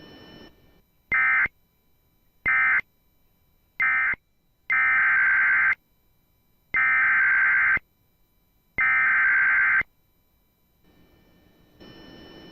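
Emergency Alert System SAME data bursts. Three short bursts come about a second and a half apart: the end-of-message code closing one warning. Then come three longer bursts of about a second each: the header code opening the next warning.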